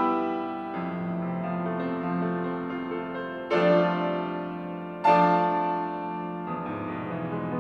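Grand piano played with notes held and ringing. Two loud accented chords strike about three and a half and five seconds in, each sustaining and fading.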